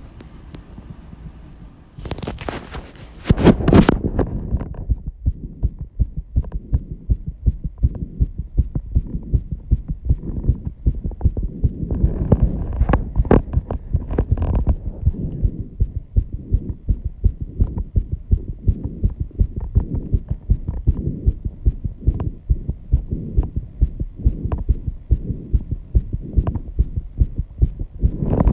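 Human heartbeat racing after intense exercise, at about 134 beats a minute: a fast, even series of low thumps. A short burst of noise about two seconds in.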